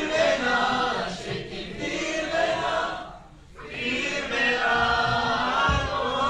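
A large mixed group of young men and women singing together in chorus, with no instruments heard. Two sung phrases, with a short break about halfway through.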